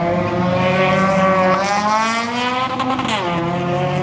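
A drag-racing vehicle's engine at full throttle, its pitch climbing and then dropping sharply about three seconds in as it goes past, over a steadier low engine hum.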